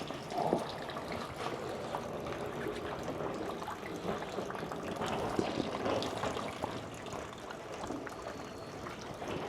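Water steadily trickling and pouring at a Shinto shrine's temizuya, the stone hand-purification basin.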